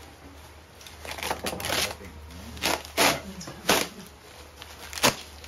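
Plastic sheet rustling and crinkling as it is lifted off a wooden crate and handled, first as a rustle, then as a few sharp crackles, with a short click about five seconds in.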